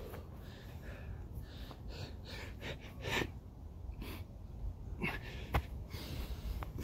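A person breathing hard in forceful puffs every second or two while doing burpees and lunges, with a few dull thuds from landing on the floor about five seconds in.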